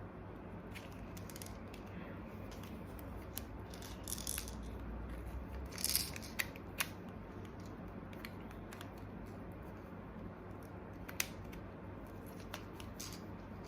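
Small plastic toy parts being handled and fitted together by hand: scattered light clicks with a few short rustles, about 4 and 6 seconds in.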